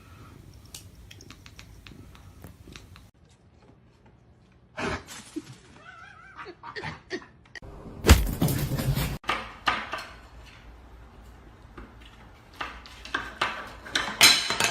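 A cat meowing briefly, then a loud thump about eight seconds in, followed by a run of knocks and clattering.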